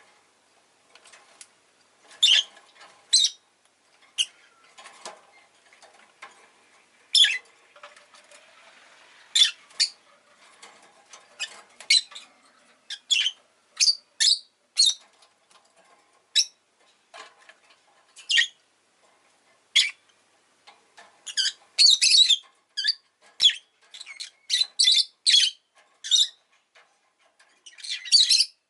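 Rosy-faced lovebird giving short, sharp, high-pitched chirps and squawks at irregular intervals, coming in quick runs about three-quarters of the way in and again near the end.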